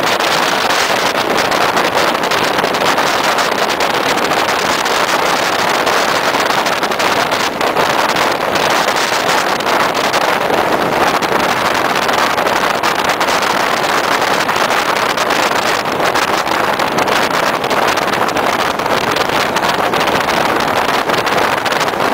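Passenger train running at speed, heard from an open carriage window: a loud, steady rush of wind and wheels on the rails, with wind buffeting the microphone.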